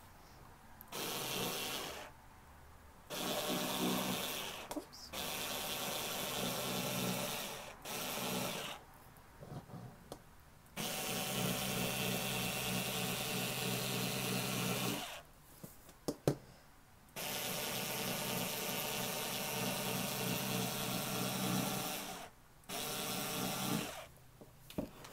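Bosch IXO cordless screwdriver with its cutter attachment running as it cuts cotton fabric. It starts and stops repeatedly in bursts of one to five seconds, with short pauses between them.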